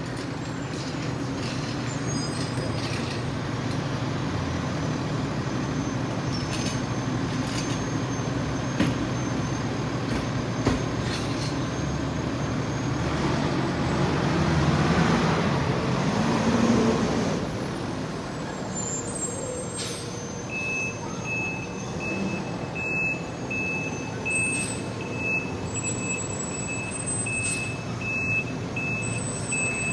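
A 2017 E-One Typhoon fire engine runs its diesel engine as it manoeuvres, growing louder as it swings close about halfway through. Roughly two-thirds of the way in, its reversing beeper starts a steady run of beeps as the truck backs up.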